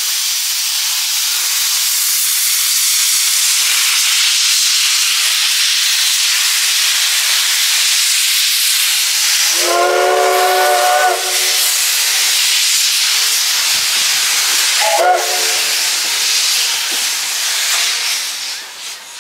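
Class C10 steam tank locomotive (No. 8, built 1930) hissing loudly as steam vents from its open cylinder drain cocks, the hiss fading near the end. About ten seconds in, its steam whistle gives a chord-like blast of about a second and a half, and a short toot follows about five seconds later.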